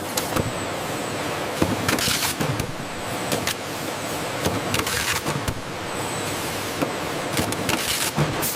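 Steady machinery noise with scattered clicks and several short hissing bursts, about two to three seconds apart.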